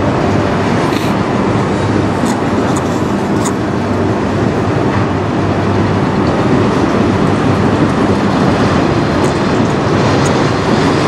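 Freight train of autorack cars rolling past: a steady rumble and rattle of steel wheels on rail, with a few brief high-pitched clicks in the first few seconds.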